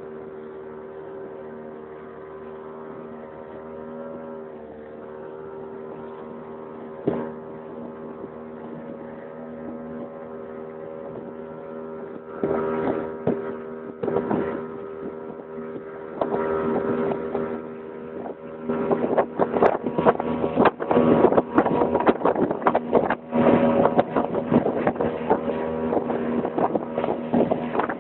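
Motorboat engine running steadily. From about halfway, loud irregular bursts of rushing wind and water noise join it, coming thick and fast in the last third.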